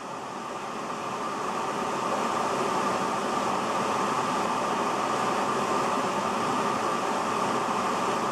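Creek in flood pouring through whitewater rapids: a steady, dense rush of water that swells a little over the first couple of seconds and then holds even.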